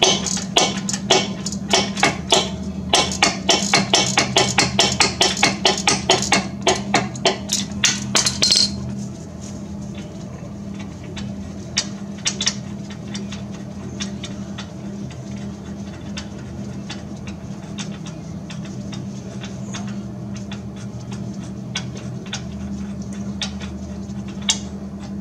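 Ratchet wrench clicking in quick back-and-forth strokes as the 15 mm wheel hub bolts are run out, for about the first eight seconds. After that only an occasional light metallic click is heard over a steady low hum.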